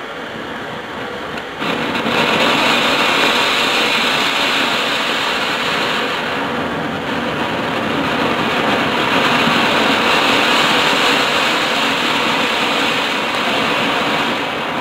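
Flower pot (anar) firework fountain spraying sparks with a steady, loud hiss that jumps up sharply about one and a half seconds in and starts to fade right at the end.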